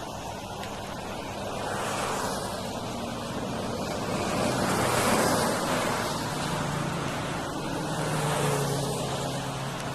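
A vehicle running at speed: a steady rushing noise that swells and eases in slow waves, over a low engine hum that rises slightly about two-thirds of the way in.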